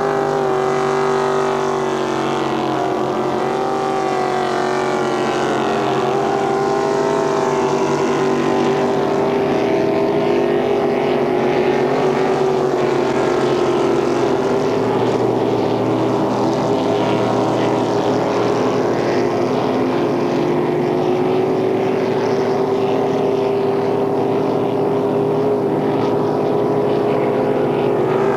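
Racing motorboat engine running flat out, holding a steady high note that wavers only slightly.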